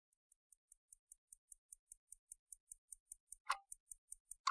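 Clock ticking: fast, light ticks about five a second fade in. From about three and a half seconds in, a louder tick joins once a second.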